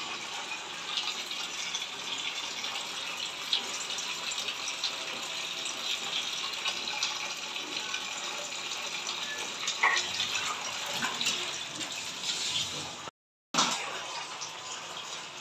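Water running steadily from a kitchen tap, with a few small knocks from about ten seconds in. The sound cuts out briefly just after thirteen seconds.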